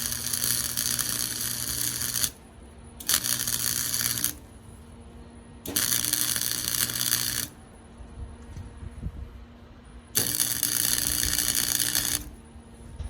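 Electric welding arc crackling and sizzling in four bursts of about one to two seconds each, with the welder's low hum under each burst. The arc is struck and broken between short weld runs.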